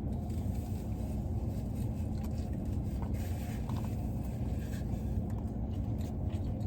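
Steady low background rumble, with a few faint clicks of someone chewing food a few seconds in.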